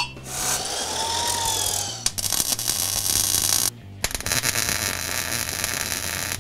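MIG welder crackling as it tack-welds a 2.5-inch exhaust turndown into place, in two bursts with a short break a little past halfway.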